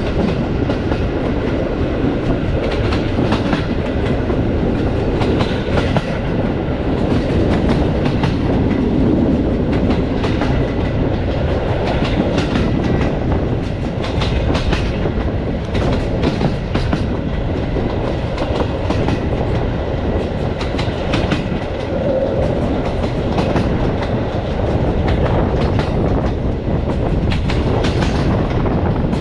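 Passenger train coaches running along the track: a steady rumble of wheels on rails, with frequent irregular clicks and knocks.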